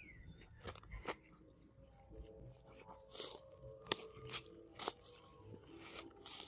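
A macaque biting into and chewing a green mango: a run of crisp, wet crunches, about eight of them, a half second to a second apart.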